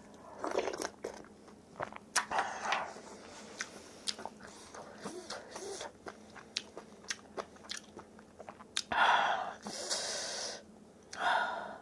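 A mouthful of kimchi being chewed and crunched, with wet mouth clicks scattered throughout. A louder, longer stretch of chewing noise comes about nine seconds in.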